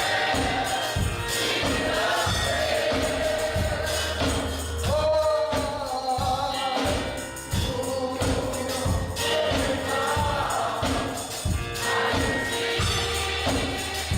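Gospel choir singing over a band, with a low bass line and a steady beat of percussion.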